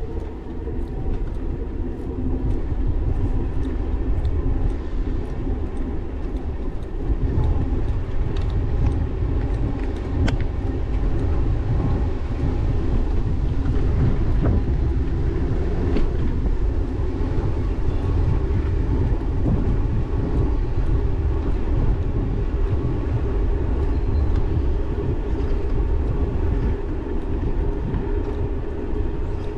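Ride noise from an e-bike on a bike path: wind buffeting the GoPro action camera's microphone over a steady rumble of tyres rolling on the pavement, with a few sharp clicks along the way.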